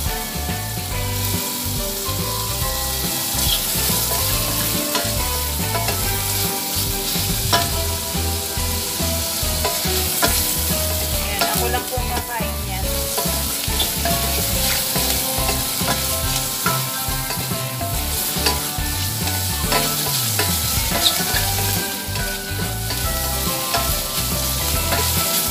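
Sliced sausage frying in butter and olive oil with garlic and onion in a stainless steel pot, sizzling steadily. A wooden spatula scrapes and knocks against the pot again and again as it is stirred.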